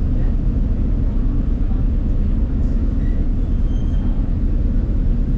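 Moving train running with a steady low rumble.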